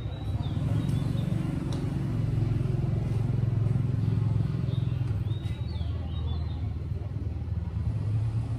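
An engine running with a low, steady rumble that swells about a second in, with a few short, high chirps over it.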